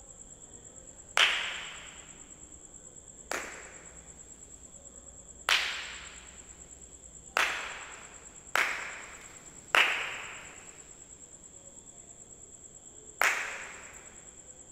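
Seven sharp, irregularly spaced cracks, each ringing away for about a second, over a steady high pulsing chirr of crickets.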